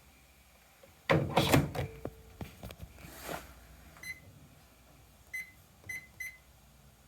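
Sanyo EM-161S microwave oven being handled: a loud burst of knocks and clicks about a second in, then four short beeps from its keypad as buttons are pressed.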